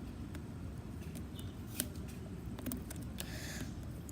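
Small clicks and a short scrape of a plastic slime container being twisted and pried at, its lid stuck, over a steady low background rumble.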